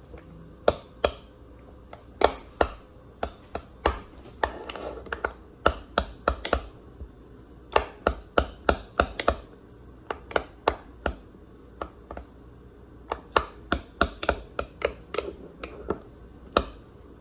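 A spoon stirring a thick sauce in a glass jar, clinking sharply against the glass in irregular runs of quick taps with short pauses between them.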